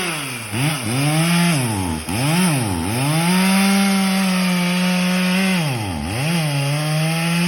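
Stihl chainsaw revving hard several times, its pitch swooping down and back up, then held at high revs for a few seconds. It drops and climbs once more about six seconds in, then holds high again.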